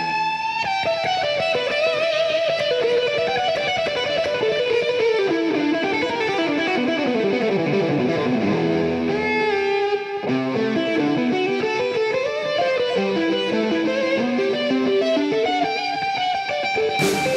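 Background music led by guitar playing quick runs of notes that step down and back up.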